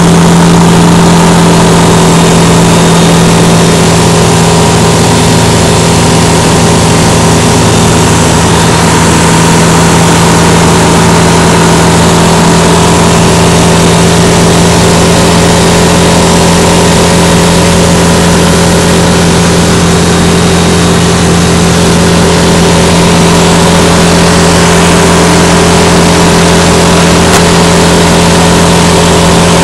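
Single-engine light aircraft's piston engine and propeller running loud and steady at high power through the takeoff run and climb, heard from inside the cockpit.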